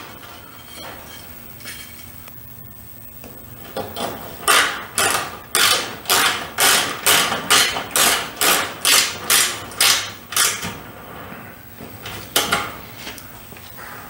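The end piece of a fluorescent fixture's lens frame being knocked back into place: about fifteen sharp, evenly spaced knocks, two or three a second, then a single knock near the end.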